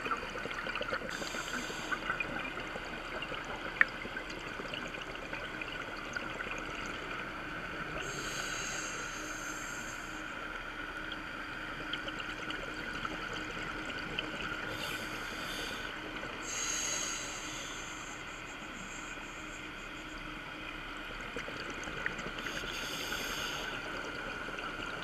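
Underwater sound picked up by a diver's camera: a steady hiss and crackle of the water, with the rush of scuba exhaust bubbles coming in bursts every several seconds as the diver breathes out. A single sharp click about four seconds in.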